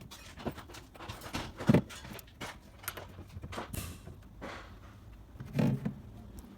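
Scattered clicks and knocks from hand work on a refrigerator door and its hinge, with the sharpest knock a little under two seconds in and another cluster near the end.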